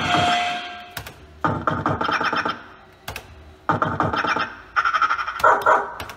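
JPM Tomb Raider fruit machine playing short synthesized jingles and sound effects in several bursts, broken by sharp clicks from the machine as it is played.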